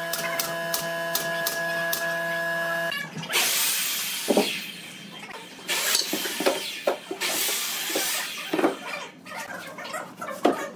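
A pneumatic nail gun firing a rapid run of nails into plywood over a steady hum. After a sudden cut comes a large wooden drawer sliding out of a cabinet, with wood scraping and several knocks as it is pulled and handled.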